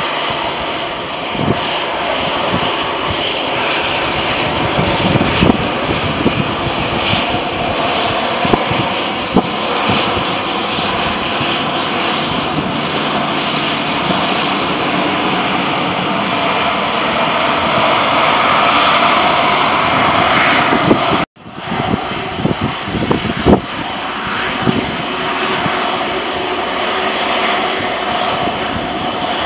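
Airbus A320's jet engines running at high power on the takeoff roll: a loud, steady jet noise that swells gradually. About two-thirds of the way through it breaks off abruptly and resumes as another take of the same sound.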